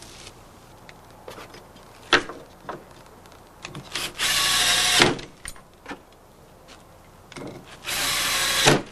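Power drill driving screws to fasten door hinges to a jamb. Two bursts of about a second each, the second near the end, with a few knocks and clicks between.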